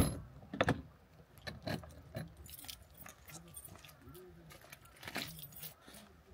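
A sharp clunk of gear being pushed into the storage compartment of a pickup's bed rack, a second knock about half a second later, then scattered crunches and clicks of footsteps on loose river pebbles.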